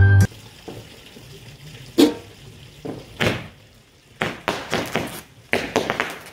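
Fireworks going off: separate bangs and pops with hissing tails, first about two seconds in, then coming faster and closer together near the end.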